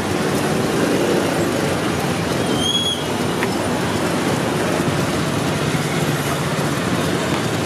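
Steady street traffic noise, with a brief high tone about three seconds in.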